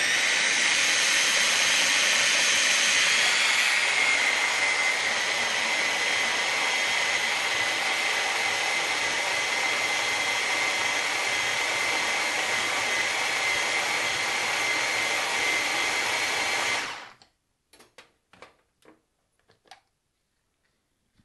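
Small electric mini chopper's motor whirring steadily as it purees cooked zucchini, oil and basil into pesto. It starts at once, settles slightly lower after about four seconds, and cuts off about seventeen seconds in, followed by a few light clicks as the motor top is lifted off the bowl.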